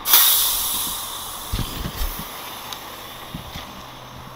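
A sharp hiss of air venting from a heavy truck's air system begins suddenly and fades away over about two seconds. A few dull thumps follow.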